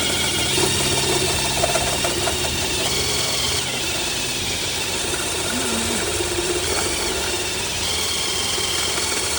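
Electric drill boring through the bus's sheet-metal side, widening a pilot hole into a larger drain hole: the motor runs steadily under load, with a high-pitched whine from the bit cutting the metal.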